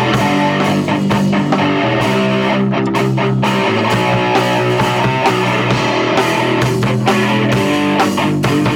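Punk rock band playing loud, with strummed electric guitar.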